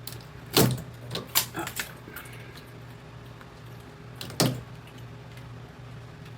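Sharp plastic clicks and knocks of a handheld shower head being pushed into its mounting bracket and popping back out: a cluster of four in the first two seconds, then one more past four seconds. The bracket won't hold the head.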